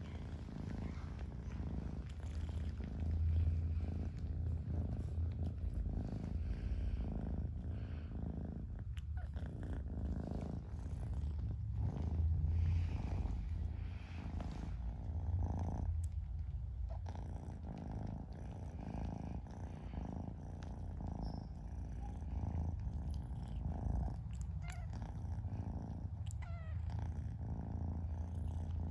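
Kitten purring steadily and close up, a low continuous rumble.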